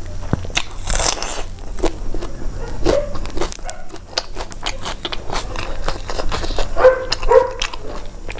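Close-miked eating sounds from someone chewing rice and curry eaten by hand: wet lip smacks and mouth clicks, with a short sucking hiss about a second in and a couple of brief hummed 'mm' sounds near the end.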